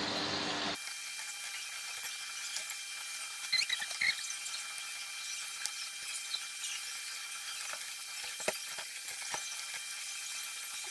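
Gujia (filled semolina-and-khoa pastries) deep-frying in refined oil in a kadhai: a steady crackling sizzle as the pastries just begin to turn golden, with a few light clicks around four seconds and again around eight and a half seconds in.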